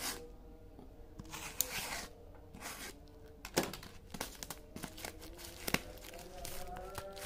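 Black plastic courier wrapping and packing tape crinkling and tearing as they are pulled open by hand, in irregular rustles with a few sharp rips.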